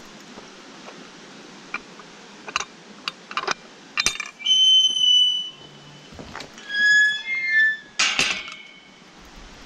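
Galvanised steel field gate being opened and closed: its spring latch clicks and clacks, the hinges squeal twice in long high-pitched squeals as it swings, and it clanks against the post near the end.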